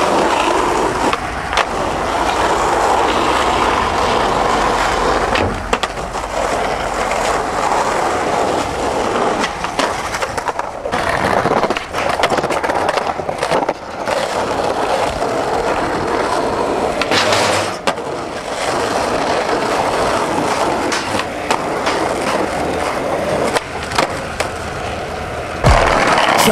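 Skateboard wheels rolling over street asphalt and paving, with sharp clacks now and then as the board is popped and lands.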